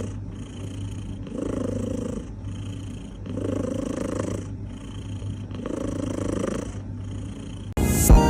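A domestic cat purring close up, the purr rising and falling with each breath in and out, about once every two seconds. Music starts suddenly near the end.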